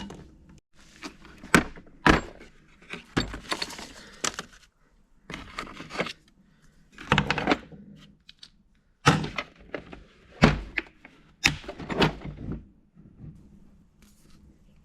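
Irregular knocks and clatter of a metal pushrod and hand tools being handled and set down, about ten sharp knocks with short gaps between.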